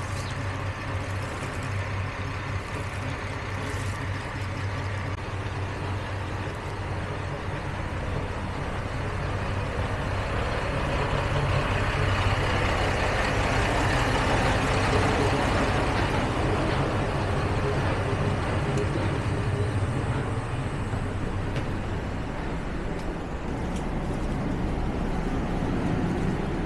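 Diesel railcar running, heard from inside the cabin: a steady low engine hum under the running noise, growing louder about halfway through and easing again near the end.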